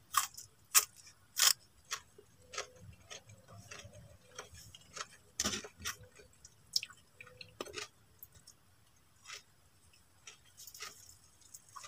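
Someone eating with their hands: soft, irregular chewing and lip-smacking clicks, a few sharper ones in the first second and a half, with faint handling sounds of fingers picking at rice and fish.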